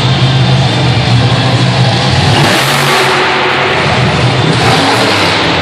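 Monster truck engine running loud and revving, its note shifting about halfway through.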